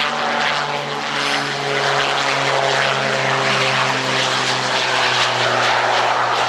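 Propeller engine of a single-engine trainer aircraft flying low with its gear down and landing, its pitch sliding slowly downward, with a rushing noise growing louder in the second half.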